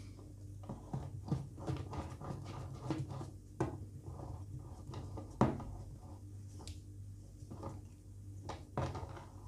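Handling sounds of a metal palette knife smoothing cream around the side of a sponge cake on a cake turntable: soft scrapes and small knocks, the sharpest about five and a half seconds in, over a steady low hum.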